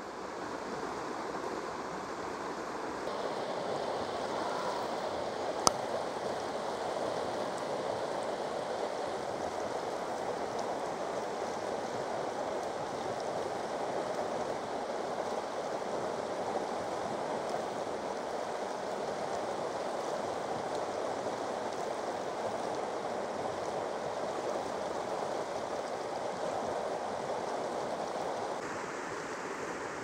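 Mountain stream rushing steadily over rocks and shallow riffles. The rush gets a little louder and fuller about three seconds in, and one sharp click comes about six seconds in.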